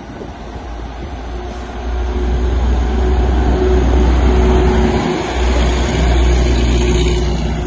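Diesel engine of a railway tower car running as the car approaches and passes close by, a steady low drone with a hum over it, growing louder over the first few seconds.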